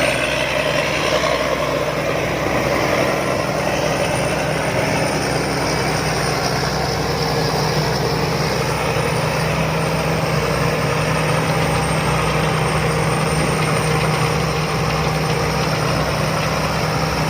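Rice combine harvester running steadily at work, its diesel engine and threshing machinery giving a constant drone with no change in pace.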